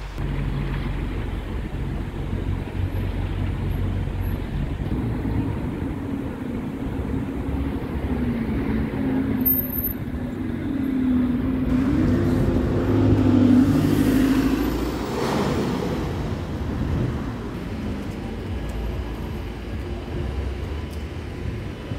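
Red London buses and street traffic passing: bus engines running and tyres on the road, with a wavering engine hum and the loudest pass about two thirds of the way through.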